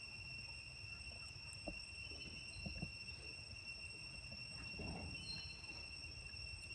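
Insects trilling steadily in high, unbroken tones over a low rumble, with a few faint soft knocks and rustles.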